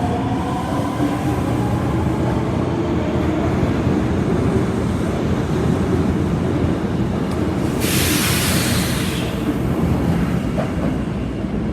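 Osaka Metro Tanimachi Line 22 series subway car running with a steady rumble. The motors' rising whine fades out in the first second, and a loud hiss of about a second and a half comes some eight seconds in.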